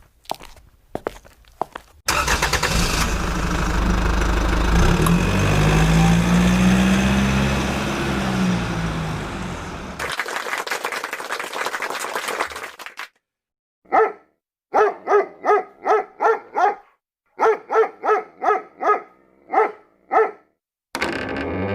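A run of separate sound effects. First come a few faint steps. Then a vehicle engine runs loudly for about eight seconds, its pitch rising and falling. After a brief hiss, a dog barks about a dozen times in quick groups, and music starts at the very end.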